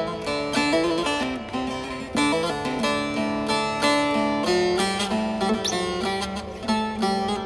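Instrumental background music played on plucked string instruments, a run of quickly picked notes.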